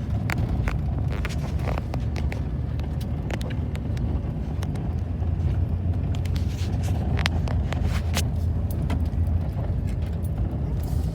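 A car driving, heard from inside the cabin: a steady low rumble of road and engine noise, with scattered sharp ticks throughout.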